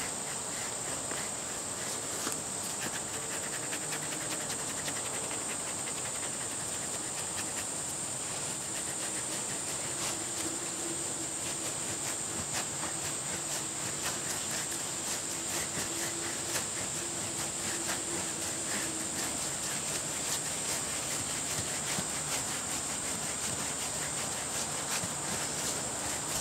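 Rubber grooming brush rubbed in rapid back-and-forth strokes through a short-haired pit bull–boxer dog's coat, making a soft scratchy rustle. A steady high insect buzz runs underneath.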